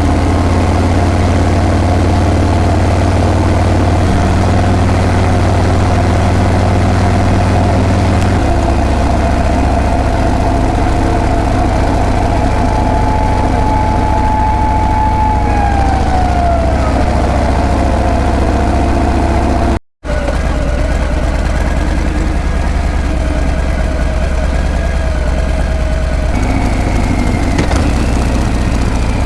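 Harley-Davidson Breakout's V-twin exhaust running steadily under way, its low drone shifting in pitch a few times. A whine falls in pitch about halfway through, and the sound breaks off for an instant about two-thirds of the way in.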